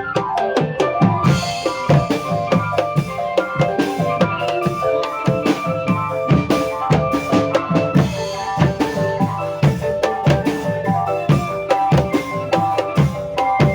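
Music with a steady, busy drum beat, several hits a second, under a repeating melody.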